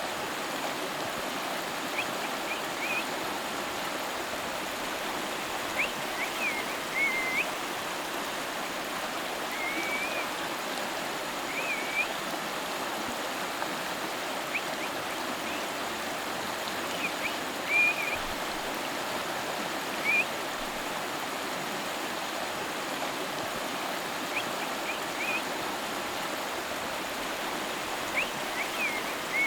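River water flowing and splashing in a steady rush, with short high chirps every few seconds.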